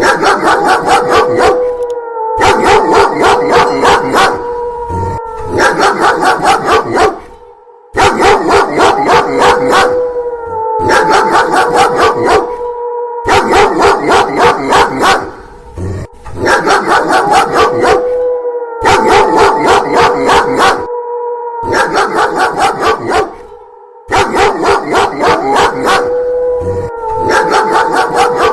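A dog barking loudly and fast, about four or five barks a second in bursts with short breaks, over a long howl that slides down in pitch and then holds steady. The same bark-and-howl sequence repeats about every eight to nine seconds, like a looped sound effect.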